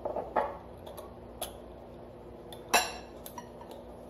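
A small glass jar clinking and clicking as it is handled and its lid is closed. There are several short clinks, the loudest a little under three seconds in.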